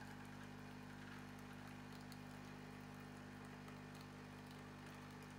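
Miele CM 7750 bean-to-cup espresso machine's pump running steadily while it dispenses an espresso, a low, even hum.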